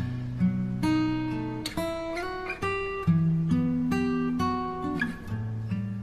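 Background music: a plucked guitar playing a gentle line of notes and chords, a new note about every half second, each ringing and fading.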